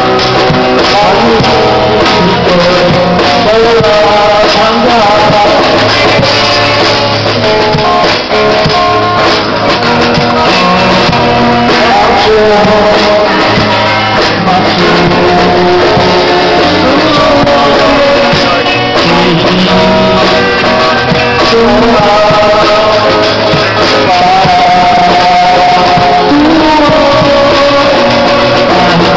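Small live rock band jamming loudly: drum kit keeping a steady beat, guitar, and a voice singing over them.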